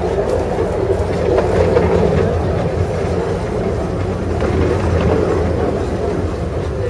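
Steady running rumble of a 15-inch gauge passenger train moving along the track, heard from aboard a carriage.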